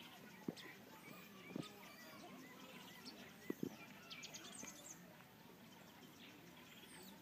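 Faint, scattered high squeaks and chirps, typical of banded mongooses' contact calls while foraging. A few sharp clicks stand out, the loudest sounds here: one about half a second in, one at about a second and a half, and two close together at about three and a half seconds.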